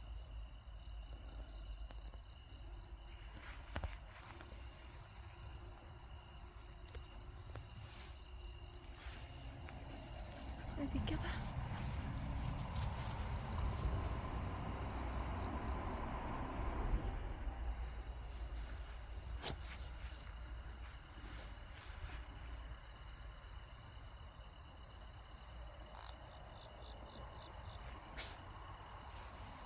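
A chorus of insects chirring steadily at one high pitch, without a break.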